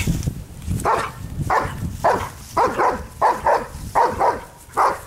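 Dog barking repeatedly at a bite-sleeve helper during protection-work agitation: short sharp barks, often in quick pairs, starting about a second in and coming about every half second.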